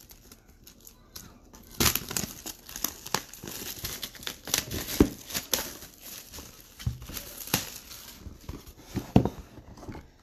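Cardboard jersey box being handled and opened, with its packaging crinkling and tearing in irregular rustles and sharp crackles, loudest about two seconds in and again near the end.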